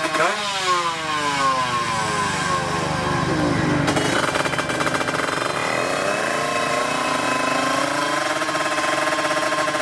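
Drag-racing motorcycle engine: it peaks in revs right at the start, then its pitch falls steadily for about three and a half seconds, as when the bike backs off after a run. From about five seconds in it climbs slowly in pitch again and holds a steady note near the end.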